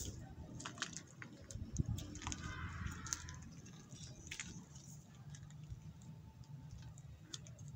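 A cat chewing on prey it has caught, with irregular crunching clicks as it bites.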